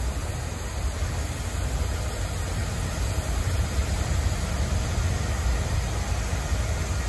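Rail wash train passing: high-pressure water spray hissing steadily onto the railheads to wash off the slippery film of crushed leaves, over a deep rumble of its diesel engines and wheels.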